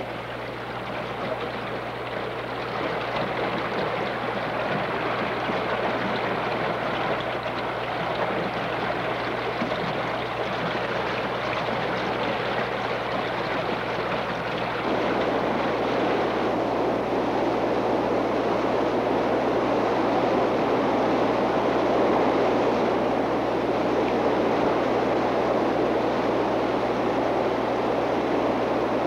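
Rushing water of a swift Ozark stream running through rapids: a steady, noisy rush that gets louder and fuller about halfway through, over a constant low hum.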